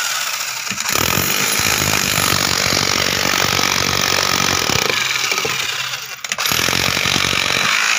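Handheld power tool running hard during balcony slab repair work, with a dense rattling drive. It eases off briefly about a second in and again about six seconds in.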